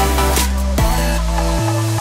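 Electronic background music with a heavy, held bass line; the deepest bass drops out near the end.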